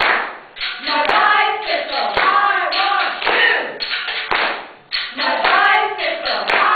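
A group of voices singing together in short phrases, with a few sharp claps. The voices drop out briefly twice.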